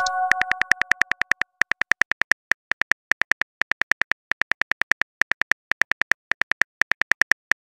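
Phone keyboard key clicks, fast and even at about seven or eight a second with short pauses, as a text message is typed. A chiming message tone fades out in the first second or so.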